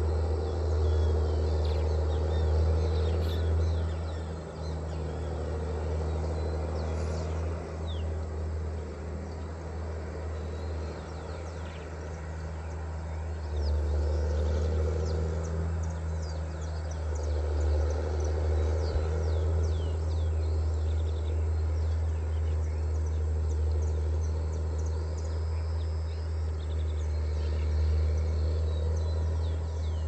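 The engine of farm machinery running steadily out of sight, a low drone that swells and eases in loudness, with many birds chirping over it.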